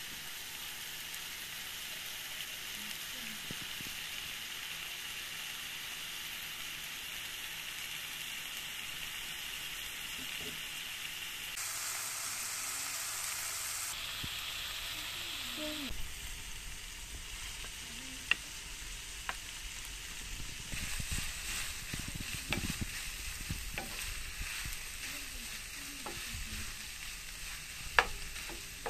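Ground meat frying and sizzling in a nonstick pan. In the second half a wooden spatula scrapes and taps the pan as it is stirred, with a sharper knock near the end.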